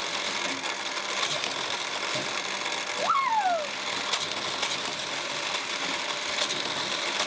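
Motorised booster of a toy car race track whirring steadily, with plastic toy cars clicking and rattling along the plastic track. A short falling squeak about three seconds in.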